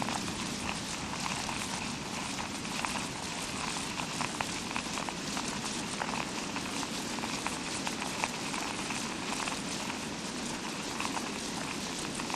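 Fake rain made as a sound effect: a steady hiss thick with small scattered ticks and patters, imitating rainfall.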